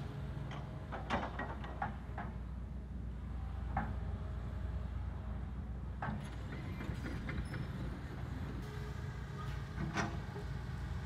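Hitachi crawler excavator's diesel engine running steadily under load, with sharp clanks and scrapes every few seconds from the bucket and tracks working the dirt; the loudest knocks come about a second in and about ten seconds in.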